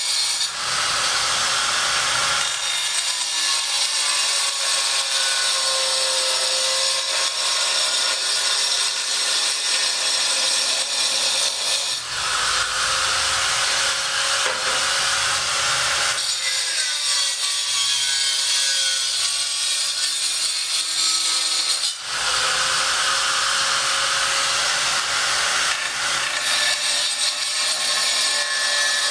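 Power tool cutting on a building site: a loud, continuous grinding-sawing noise whose pitch wavers slightly as it works under load. The sound changes abruptly about 12 and 22 seconds in.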